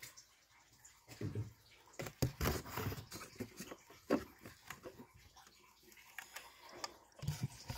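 Irregular light clicks and knocks from the oil filter housing cap and filter being worked loose and handled.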